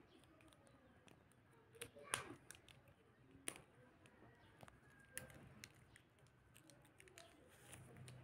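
Faint, scattered clicks and taps of plastic felt-tip markers and their caps being handled and gathered in the hand, with a sharper click about two seconds in and another a second and a half later.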